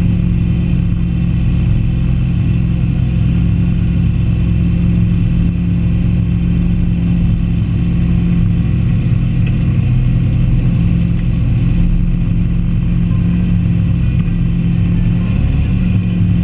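Sports car engine running at a steady, unchanging pitch as the car drives, picked up loud and close by a camera on the bonnet, with a slight rise in pitch near the end.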